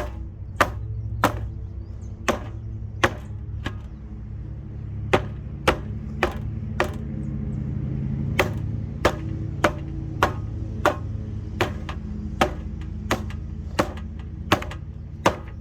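Lasko box fan running with a steady low hum, and a sharp click about every two-thirds of a second, with a few short breaks in the clicking.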